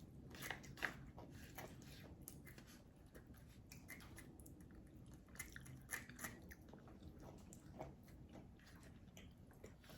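Faint close-up chewing and biting, with scattered small crunches and mouth clicks.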